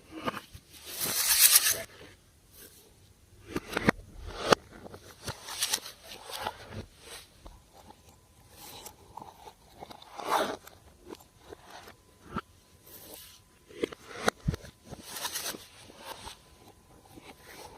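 Slime being squished and kneaded by hand: irregular sticky crackles with sharp clicks and pops.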